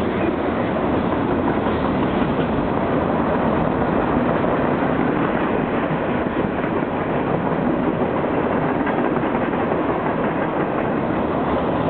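Freight train cars rolling past at speed: a steady, even noise of steel wheels on rail with some clickety-clack over the rail joints, and no horn.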